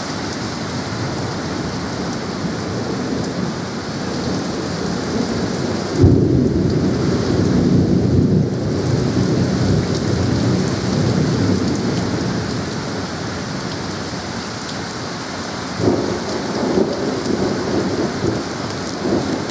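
Heavy rain falling steadily in a thunderstorm. About six seconds in, a sudden thunderclap rumbles on for several seconds, and a second, shorter clap comes near the end.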